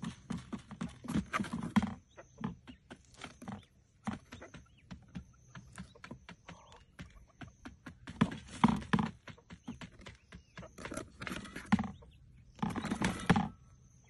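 Quail pecking and scratching at the dirt and the cardboard trap: quick irregular clicks and rustles in bunches, with a denser flurry near the end.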